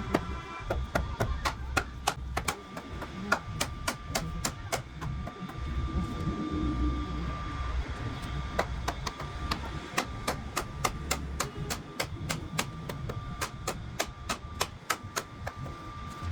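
Hammer striking wood over and over: dozens of sharp knocks at an uneven pace, at times several a second, over a low rumble and a faint steady hum.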